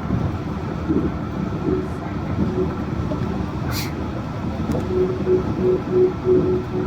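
Yurikamome Line rubber-tyred automated train running, a steady noise of the ride with a humming tone that comes and goes, more often in the second half. A short hiss about halfway through.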